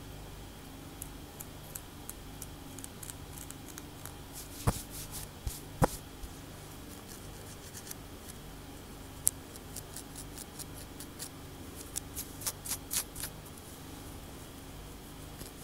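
Long fingernails scratching and clicking over a cornrowed scalp: a run of short, sharp scratchy clicks in clusters, with two louder clicks about five and six seconds in, over a faint steady low hum.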